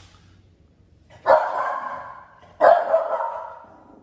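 French bulldog puppy barking twice, about a second and a half apart, each bark starting sharply and trailing off.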